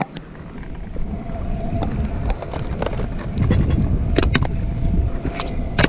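Stunt scooter's wheels rolling over concrete sidewalk and curb, under heavy wind rumble on the microphone. There are sharp clacks of the scooter striking the concrete about four seconds in and again near the end.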